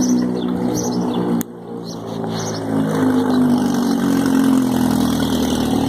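A motor vehicle's engine running with a steady, even hum, which drops away briefly about one and a half seconds in.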